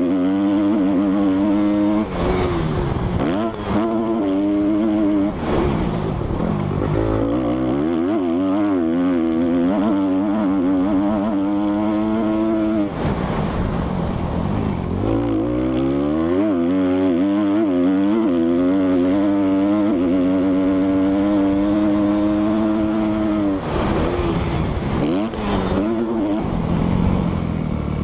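Motocross motorcycle engine revving hard, its pitch climbing and falling again and again as the throttle is opened and shut and the gears change.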